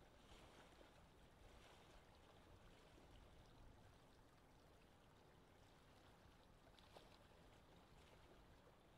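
Faint, steady water ambience: gentle waves washing and lapping under a soft hiss of wind, swelling a little now and then. A small tick about seven seconds in.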